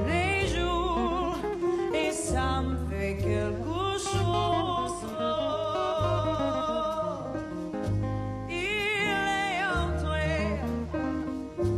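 Soundtrack music: a singer holding long notes with a wide vibrato over slow, deep bass notes.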